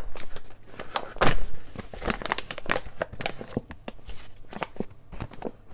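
Paper pouch of cacao powder being pulled open and handled, crinkling and rustling, loudest about a second in.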